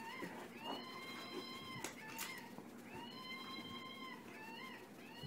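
Plush monkey toy's sound chip giving two long, steady-pitched electronic calls, each ending in a short upward lift. A couple of clicks fall between them, as the toy is knocked about.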